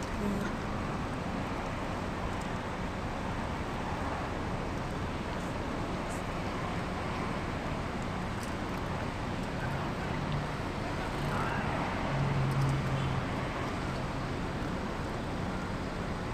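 Steady background rumble of distant road traffic, with a low drone swelling briefly about twelve seconds in.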